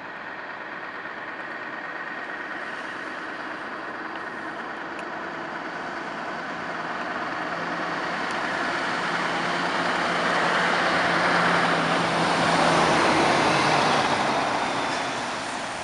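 Scania R620 truck's V8 diesel running as it approaches and drives past close by, its engine note and tyre noise growing steadily louder to a peak shortly before the end, then dropping away as it passes.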